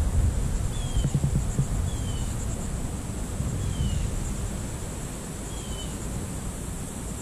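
Outdoor ambience: a steady high-pitched insect drone, with a bird giving about four short falling chirps, over an uneven low rumble of wind on the microphone.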